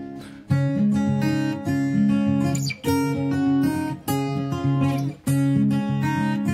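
Background music: acoustic guitar playing plucked notes and chords in a steady, repeating rhythm.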